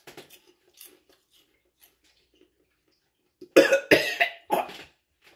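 A man coughing hard, about four loud coughs in quick succession starting about three and a half seconds in, set off by the burn of a Carolina Reaper pepper he has just eaten.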